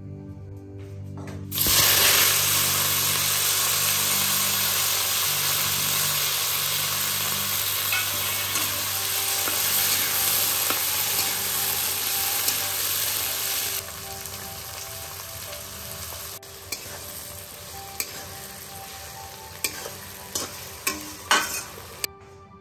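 Sliced onions and garlic cloves sizzling in hot oil in a steel wok. The sizzle starts suddenly and loud about a second and a half in, settles to a quieter steady frying sound about two-thirds of the way through, and near the end a few sharp clicks of the spatula against the wok stand out.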